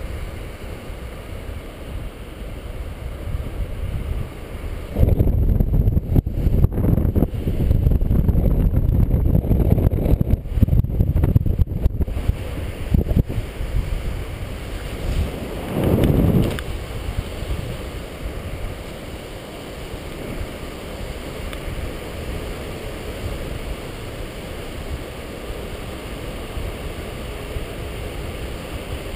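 Wind rushing over the microphone of a harness-mounted camera on a paraglider in flight. It gets louder and gustier from about five to twelve seconds in, with one more short swell a few seconds later, then settles back to a steady rush.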